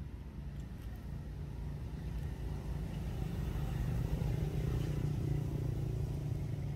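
A motor vehicle's engine running steadily as a low rumble, growing louder about halfway through.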